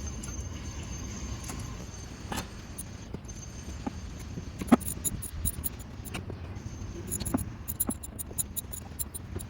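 Metal hand tools clicking and clinking during spark plug work on a Ford 5.4 L three-valve V8: a few sharp knocks, the loudest about halfway through, and a run of quick light ticks in the second half, over a steady low rumble.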